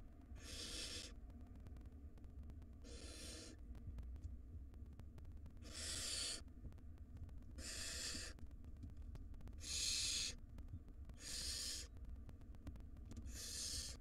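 Barn owl nestlings' begging calls: a series of about seven breathy hisses, each under a second long, coming roughly every two seconds.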